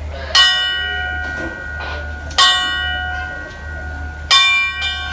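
Station bell struck three times, about two seconds apart, each strike ringing on and fading; rung once the rear of the train has been reported clear, it is the signal for the train's departure.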